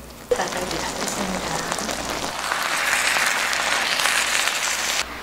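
Cheese dakgalbi sizzling in a hot cast-iron pan on a portable gas burner. The sizzle starts with a click just after the beginning, grows louder and cuts off abruptly near the end.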